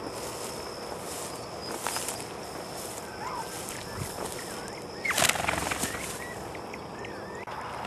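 Dry grass and brush rustling as a bird dog pushes through cover, with a louder crashing rustle about five seconds in. A steady high insect drone and a few short bird chirps sound under it.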